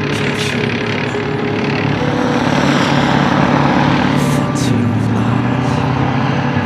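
CV90 infantry fighting vehicle's Scania V8 diesel engine running under load as the tracked vehicle drives past over soft ground, with a few short high clanks or squeaks from the running gear. The engine note drops slightly about five seconds in.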